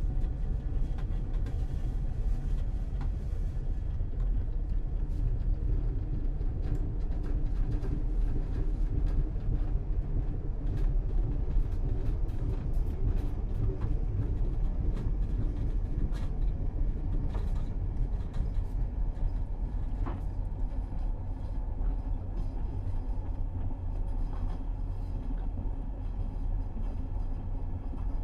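Steady low rumble of a moving commuter train heard from inside the carriage, with scattered light clicks and rattles throughout.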